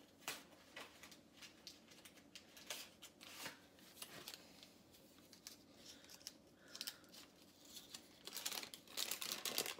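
Faint handling noises of pie-crust preparation: scattered light clicks and scratches of ingredients, packaging and utensils being worked on a kitchen counter, busier near the end.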